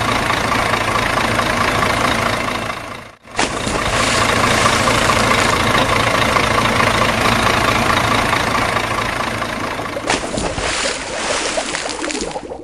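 Truck engine sound running steadily. It breaks off abruptly about three seconds in, resumes at once, and changes abruptly again about ten seconds in.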